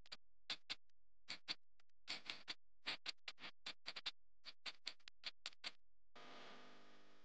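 Countdown timer sound effect: quick, uneven ticking clicks several times a second, then a pitched tone holding for about a second near the end as the countdown runs out.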